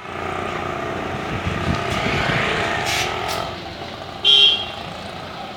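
Street traffic, with a motor vehicle running past in the first few seconds. About four seconds in comes a short, high-pitched beep, the loudest sound.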